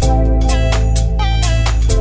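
Background music: an electronic track with a heavy bass and a steady drum beat of about four hits a second.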